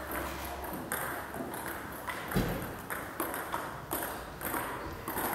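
Table tennis ball clicking off the bats and the table in a rally, a series of sharp irregular hits. A dull thump a little over two seconds in is the loudest sound.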